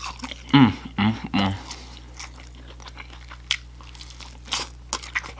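Close-up chewing and biting of food, with irregular crunches and wet mouth clicks. A few short hummed or voiced sounds come between about half a second and a second and a half in.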